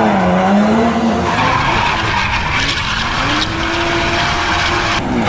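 Dubbed cartoon vehicle sound effect for a toy truck driving off. An engine note dips, climbs and falls again, with a rushing hiss joining about a second in.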